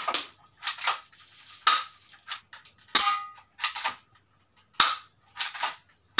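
D'cobra M2000L spring-powered airsoft pistol, a plastic Glock 26 replica, fired several times as sharp clicks, its slide racked to re-cock between shots. Some shots are followed by a short metallic ping of the BB striking a steel plate target.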